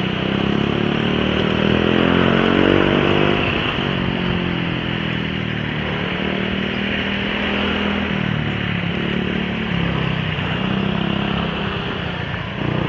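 A Yamaha NMAX scooter's single-cylinder engine running while riding in traffic, over a steady rush of wind and road noise. Its pitch rises as it accelerates a second or so in, then settles to a steady cruise.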